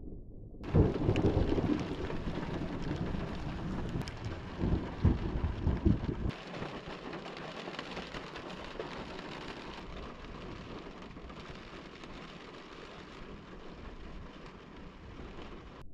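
Thunder rumbling in two heavy bouts, about a second in and again around five to six seconds in, over a steady hiss of heavy rain that carries on after the rumbles die away.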